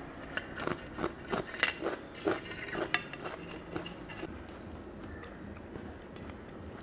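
Close-up chewing of a mouthful of rice and a crisp cucumber slice: a quick run of crunches for about the first three seconds, then softer chewing.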